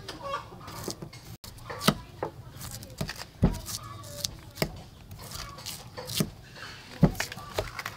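Kitchen knife shaving and cutting into a fresh bamboo shoot on a wooden chopping board: irregular sharp cuts and knocks of the blade against the board, about one or two a second, the loudest near two seconds in, halfway through and near the end.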